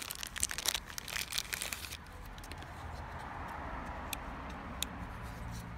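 Knife packaging being unwrapped: crinkling and rustling for about two seconds, then a few isolated light clicks.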